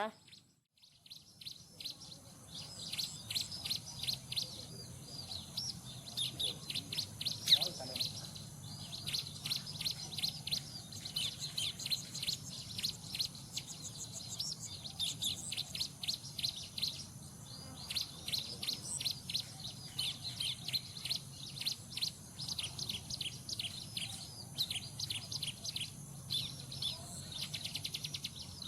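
Bar-winged prinias (ciblek) calling: quick runs of short, high chirps, repeated almost without pause, with one louder note about seven and a half seconds in.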